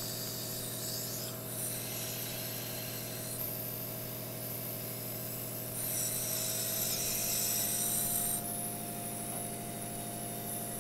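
Nebulizer compressor running with a steady electric hum. Over it, a high airy hiss swells and drops every two to three seconds, in time with breaths drawn through the mouthpiece.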